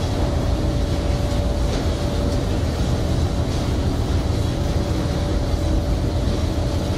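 Steady din of fish-processing machinery on a fishing ship's processing deck: a deep rumble with a steady hum and light clatter from the conveyors and machines.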